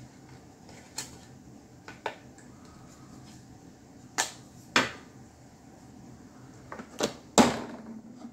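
Small plastic model kit parts being handled and set down on a hard bench surface: a scattered series of sharp clicks and knocks, the loudest a little past seven seconds in.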